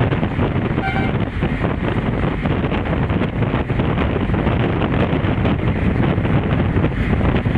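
Loud, gusting wind noise buffeting the microphone outdoors. There is a brief whistle-like tone about a second in.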